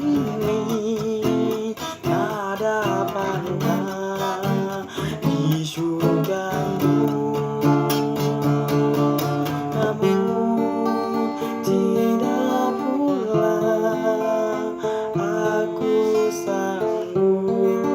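Acoustic guitar playing an instrumental passage of a slow devotional song, strummed chords with picked melody notes.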